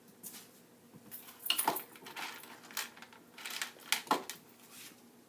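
Light clattering, rubbing and a few sharp clicks as a plastic hard hat is handled and put on, with the loudest knocks about a second and a half and four seconds in.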